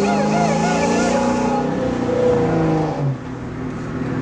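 Road and engine noise inside a moving car, with held pitched notes and a wavering, voice-like line over it that stop about three seconds in.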